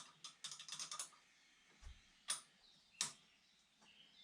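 Light clicks of hand tools and small metal fittings being handled: one click, then a quick rattling run of clicks, then two more single clicks.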